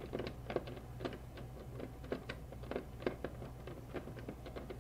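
Screwdriver turning small mounting-bracket screws for a CPU cooler bracket, giving faint, irregular light clicks a few times a second.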